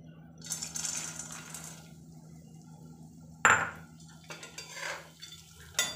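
Chopped cashews and almonds tipped into hot ghee in a kadhai, hissing for about a second and a half, then a metal ladle knocking and scraping against the pan, with the loudest knock about halfway through and another near the end.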